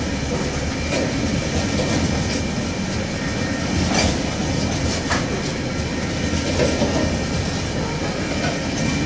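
Coal hopper wagons of a freight train rolling past close by: a steady rumble of steel wheels on rail, with sharp clicks over rail joints a few times.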